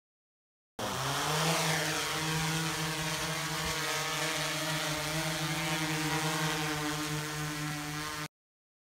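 DJI Inspire 2 quadcopter's rotors spinning up for takeoff, the pitch stepping up about a second in, then a steady buzzing hum with a hiss of prop wash as it lifts off and climbs. The sound starts and stops abruptly.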